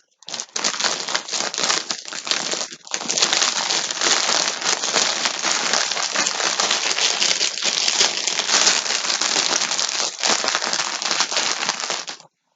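Plastic packaging crinkling steadily as a skein of yarn in its bag is handled, with a short break about three seconds in, stopping suddenly near the end.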